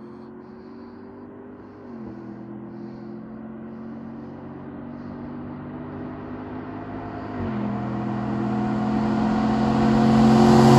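RAM 1500 pickup's 5.7 HEMI V8 through a custom exhaust, accelerating toward the listener and growing steadily louder. The engine note rises and drops back twice as it shifts up.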